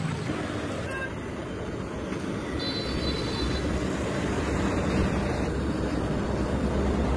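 Steady rush of wind on the microphone and road traffic rumble, growing louder after a couple of seconds, with a brief car horn toot about three seconds in.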